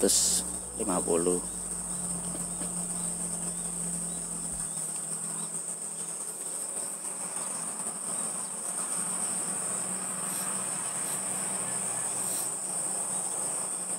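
Insects chirring in a steady, high-pitched continuous drone, with a brief voice about a second in.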